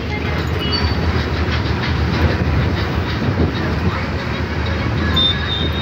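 Bus engine running steadily with road and wind noise as the bus drives along, heard from inside the cabin by an open window.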